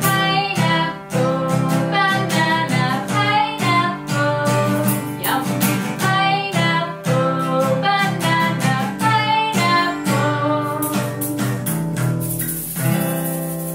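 A woman singing a children's song over a strummed acoustic guitar. Near the end the singing stops and a last chord rings on under the hiss of a small shaker.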